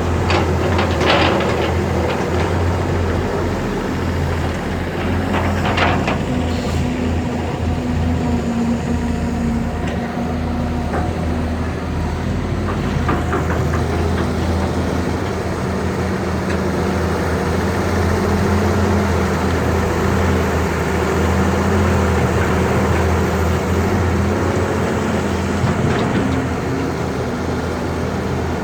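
Heavy diesel engines of excavators running steadily, with a couple of short clatters about one and six seconds in.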